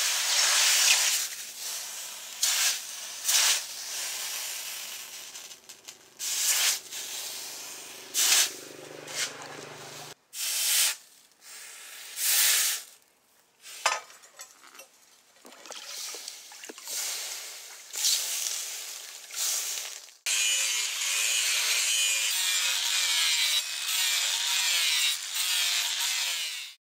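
Leaf-spring steel cleaver blade being ground and sanded in a series of short bursts cut one after another, ending in a longer steady stretch of grinding as sparks fly off the edge.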